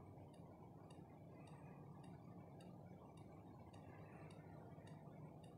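Near silence: a faint low hum with faint, evenly spaced ticks.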